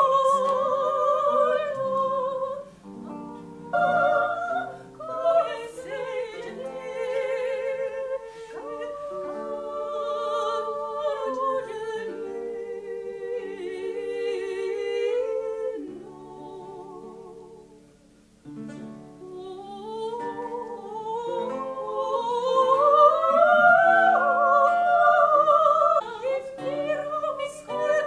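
Classical female singing with vibrato, accompanied by a plucked theorbo. The music dips to a brief near-pause a little past the middle, then the voice climbs higher.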